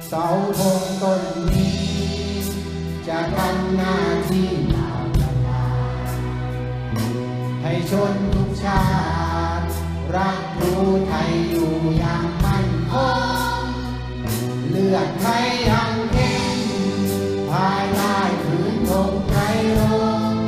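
A children's choir singing with an orchestra, violins among it, accompanying with sustained chords.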